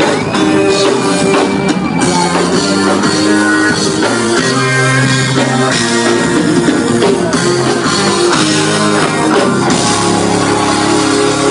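Live band music played loud and steady, with guitar and drums.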